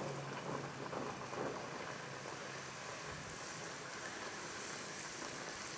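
Bhatura dough deep-frying in very hot oil in an aluminium kadhai, a steady sizzle as the bread puffs up under a slotted spoon.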